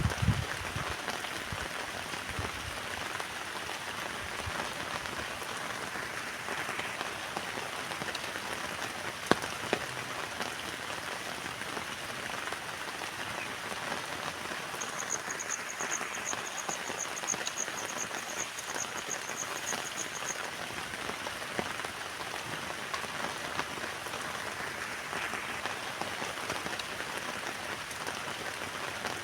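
Steady rain pattering on a tent, with a few sharper single drop hits. A high, rapid pulsing trill runs for about five seconds in the middle.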